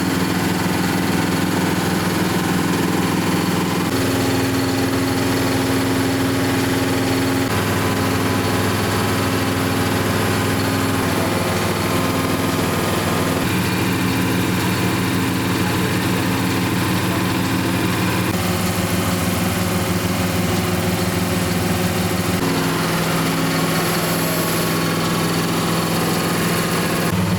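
An engine running steadily at idle, its tone shifting abruptly to a new steady pitch every few seconds.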